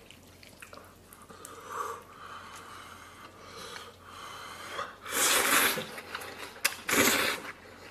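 A person slurping instant noodles: two loud drawn-in slurps, a longer one about five seconds in and a shorter one near the end, with fainter mouth sounds before them.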